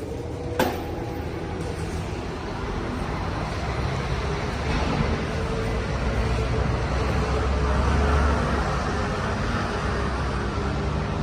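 Road traffic noise with a sharp click about half a second in; the traffic swells to its loudest around eight seconds, as a passing vehicle would, then eases.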